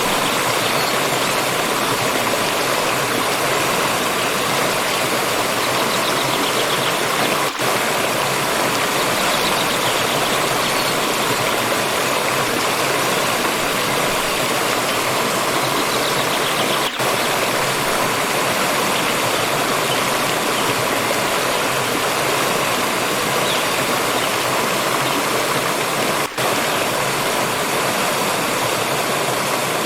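Steady rushing of a flowing water stream, with three very brief dips in level: about a quarter of the way in, just past halfway, and near the end.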